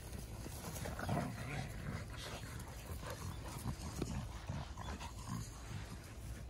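Dogs making short, irregular vocal sounds while they play-chase each other, over a steady low rumble.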